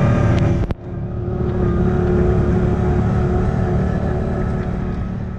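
Off-road vehicle engine running; it cuts off abruptly under a second in, and a steady engine drone with a held tone follows, slowly fading out.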